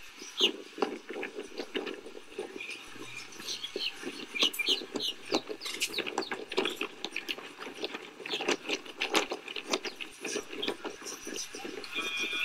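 Horse cantering on a sand arena, a run of irregular hoofbeats and knocks, with indistinct voices in the background.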